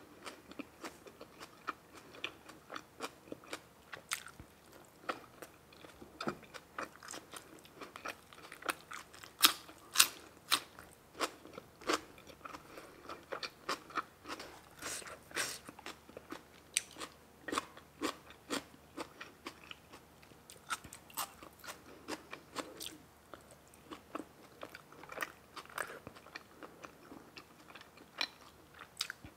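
A person chewing and biting food close to the microphone, with many sharp crunches at irregular intervals, loudest about ten seconds in.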